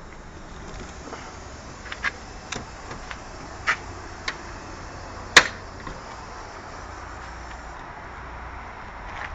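A few short clicks and knocks from a truck cab being got out of, the loudest a sharp knock about five seconds in, over a faint low rumble.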